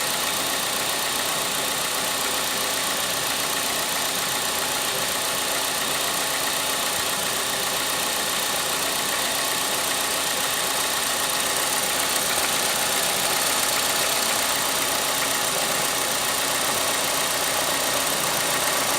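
Ford Galaxy engine idling with the air-conditioning compressor clutch engaged and the compressor running: a steady mechanical running noise that grows a little louder about two-thirds of the way through.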